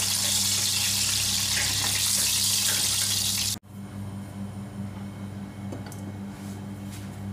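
Hot oil sizzling loudly in a frying pan as the last fried eggplant slices are lifted out with tongs; the sizzle cuts off abruptly about halfway through, leaving a steady low hum with a few faint ticks.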